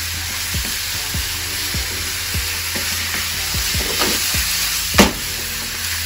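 Chicken pieces sizzling as they sear over high heat in a nonstick frying pan, stirred and turned with a wooden spatula to brown them. There is a steady frying hiss and one sharp knock of the spatula against the pan about five seconds in.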